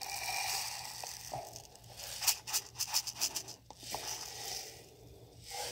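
Mixed Tannerite powder (a binary explosive) pouring from its plastic canister into a small clear plastic container: a granular hiss, with a run of quick patters and rattles in the middle.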